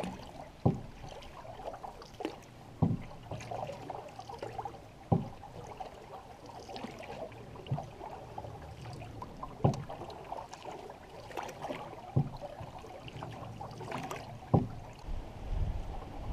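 Canoe paddle strokes: water swishing and dripping off the blade, with a sharp knock about every two and a half seconds as each stroke is taken.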